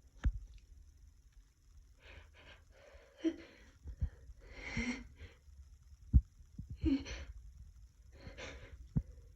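A dog with a blocked nose snorting and sniffling in a series of short, rough, noisy breaths, about six bouts. A few sharp knocks fall between them, the loudest about six seconds in.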